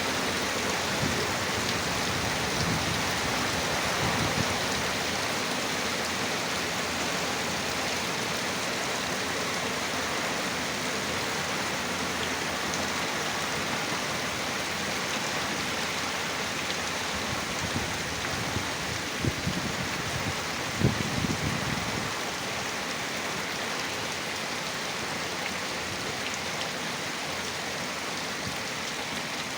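Heavy rain pouring steadily, a dense even hiss, with brief low gusts of strong wind buffeting about two-thirds of the way through.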